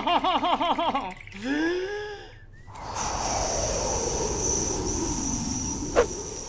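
A comic voice huffing and puffing in wavering, breathy bursts, then a long blowing gust of wind as the wolf blows the straw house down. The gust is a steady whoosh whose pitch slowly falls, with a thin high whistle over it, and a sharp click comes near the end.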